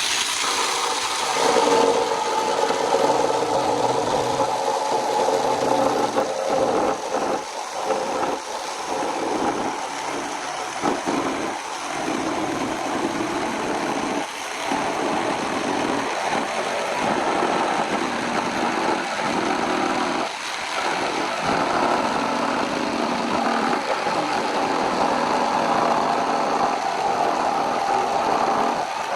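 Small electric jigsaw cutting through a thick hardwood slab, the motor running continuously with many brief dips in level as the blade loads and eases.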